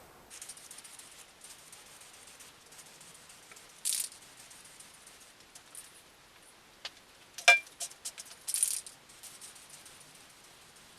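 Aerosol spray can of base-coat paint being worked: short hisses of spray about 4 and 8.5 seconds in, and a brief clicking rattle of the can's mixing ball between them.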